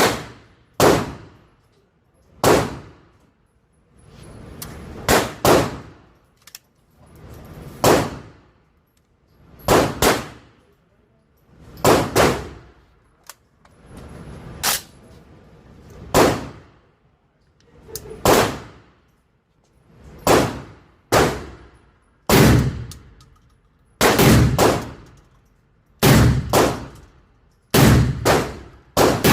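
Semi-automatic 12-gauge shotgun fired shot after shot, about two dozen loud reports, each ringing off briefly. The shots come roughly one every second or two, with a few quick doubles toward the end.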